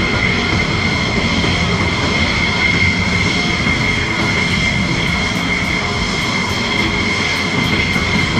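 Jet engines of F-16 fighters idling on the ramp: a loud, steady high-pitched whine over a rumble.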